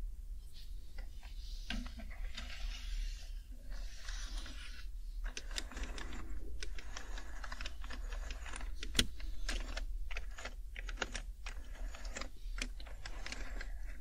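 Typing on an HHKB Professional 2 keyboard with Topre switches: a quick, irregular run of keystroke clicks that grows thicker from about five seconds in.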